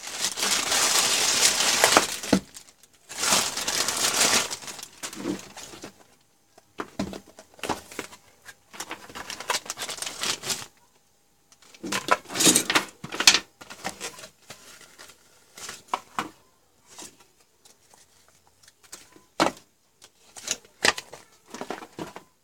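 Packaging being handled: a plastic mailer bag crinkling and tearing open in the first few seconds, then scattered rustling and clicks as a cardboard box, plastic pouch and folded paper manual are handled.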